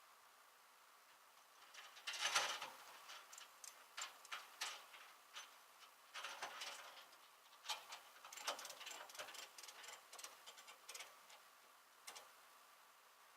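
Irregular light clicks and rattles, several a second, starting about two seconds in, loudest at the start, stopping about a second before the end.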